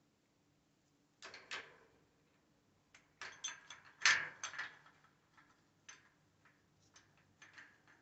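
Metal clicks, scrapes and knocks of a Kwikset deadbolt's keyed exterior cylinder housing being fitted into the door bore, its tailpiece sliding through the latch and the housing seating against the door. The clicks come in a few clusters, the loudest about four seconds in.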